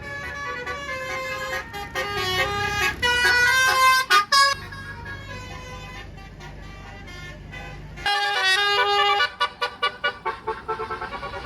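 Bus 'telolet' multi-tone horn playing quick stepping tunes, loudest a few seconds in. After a few seconds with only the engine running, the horn sounds again about eight seconds in and ends in fast repeated notes.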